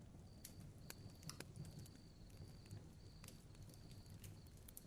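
Near silence: a faint low hum with a few scattered soft clicks and a faint, broken high tone.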